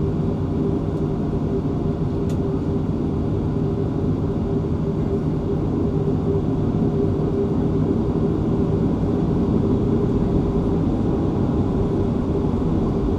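Boeing 737-500's CFM56-3 turbofan engines running at ground idle, a steady low rumble with a constant hum, heard from inside the cabin.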